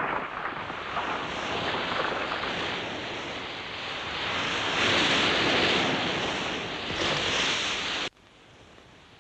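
Sea surf and wind: an even rushing that swells around the middle and again near the end. It cuts off abruptly about eight seconds in, leaving a much quieter background.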